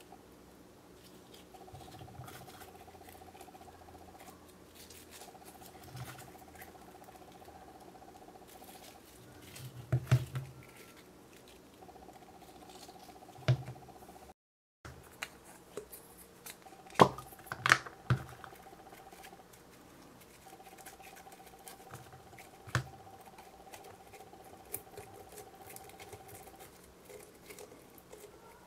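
Hands squishing and stretching glitter slime and handling a plastic syringe on a tabletop: soft sticky handling noises with scattered sharp clicks and taps, a small cluster of them a little past the middle. A faint hum comes and goes underneath.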